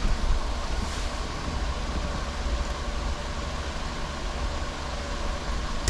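A steady rushing noise with a low hum, over which electrical wire is handled and worked with a wire stripper, giving faint rustles and a few light clicks.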